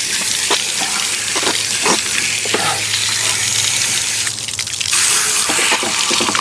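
Water running and splashing steadily out of an RV water heater tank as it is flushed with a tank rinser wand, with a steady low hum underneath.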